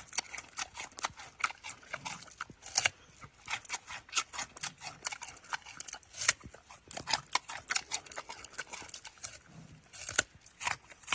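Giant panda biting and chewing a raw carrot: an irregular run of sharp crunches, several a second.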